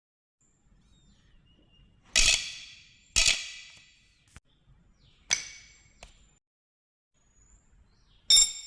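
Metal parts being handled and knocked together: four sharp clinks a second or two apart, each with a short ring, the last one near the end ringing with a clear bell-like tone.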